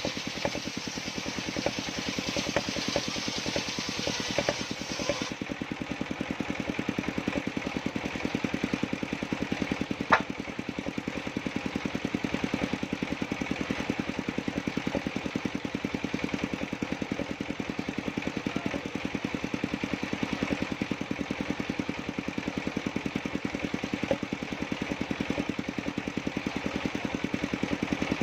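Engine driving a sawmill's circular saw, running steadily with an even, rapid pulse. A high hiss sits over it for the first five seconds and stops abruptly, and there is one sharp click about ten seconds in.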